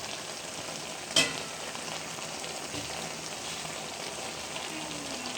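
Cauliflower and potatoes sizzling steadily in a pan as most of their cooking water has dried off. A single sharp clink about a second in comes as the lid is lifted.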